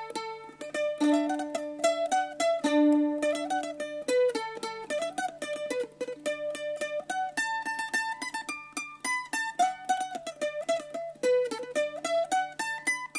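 Background music: a lively melody picked on a plucked string instrument, with a faint steady hum underneath.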